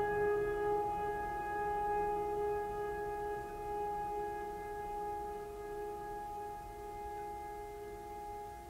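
Background music: one held tone with overtones, slowly fading.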